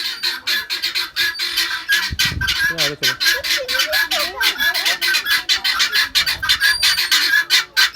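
A flock of farm birds calling rapidly and without a break.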